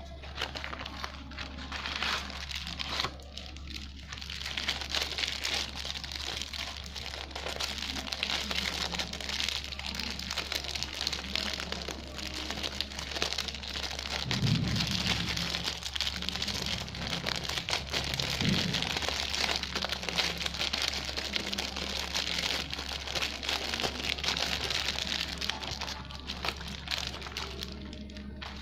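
Packaging being handled and crinkled during an unboxing: continuous crackling and rustling, with two soft thumps about halfway through and a low electrical hum underneath.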